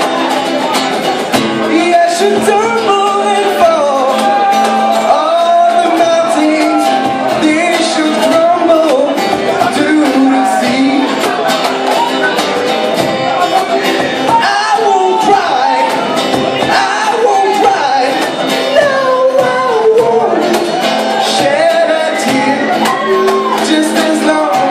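Band music with a singer, loud and continuous, the vocal line weaving over the instruments.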